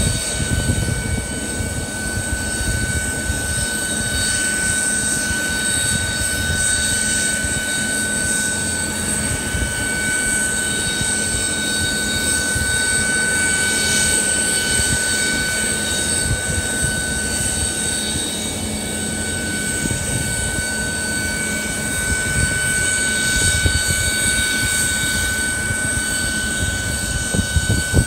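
Aircraft turbine running steadily on the apron: a constant high whine over a low rumble, with wind gusting on the microphone.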